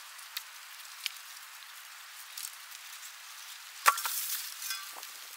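Hand digging in cold soil: a few small scrapes and clicks from gloved hands in earth and dry stalks. Then, about four seconds in, a sharp clink with a brief ring as Jerusalem artichoke tubers are dropped into a stainless-steel bowl, followed by a short clatter.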